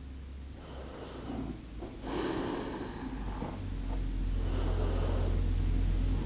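Slow, deep breaths in and out, about three audible breaths, taken while holding a stretch. A low rumble builds underneath from about halfway.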